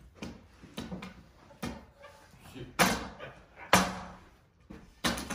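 Billiard balls knocking against each other and the table: a few sharp clacks, the loudest about three and four seconds in and another near the end.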